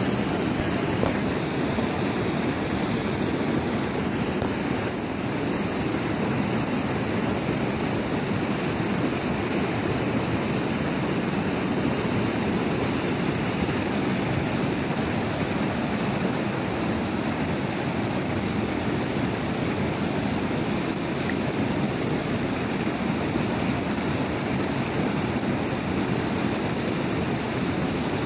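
Fast river rapids rushing steadily over rocks, a constant roar of whitewater.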